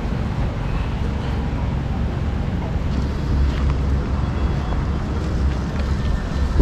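Storm wind buffeting the microphone: a steady low rumble under an even hiss.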